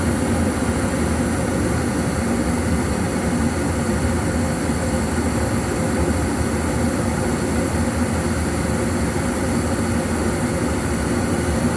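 Goodman 90+ gas furnace with a cracked heat exchanger running: a steady, even hum of burner and fan noise with a low drone underneath.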